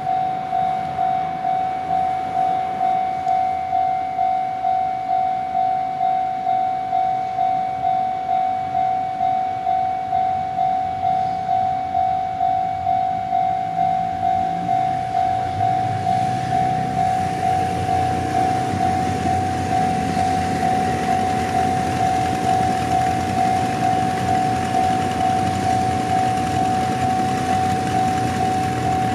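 Japanese level-crossing warning bell ringing its repeated clanging tone at a steady, even beat. From about halfway a train's rumble comes in and grows louder as it nears and runs through the crossing.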